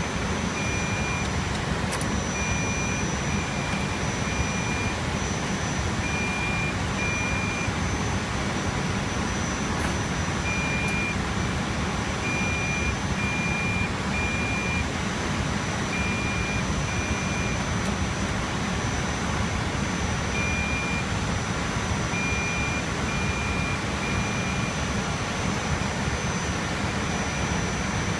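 Steady rush of rack-server cooling fans running, with a thin high whine over it and short high beeps in runs of one to three every few seconds.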